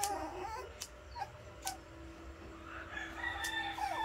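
Several sharp clicks of small pet nail clippers cutting a puppy's nails. A rooster crows in one drawn-out call near the end.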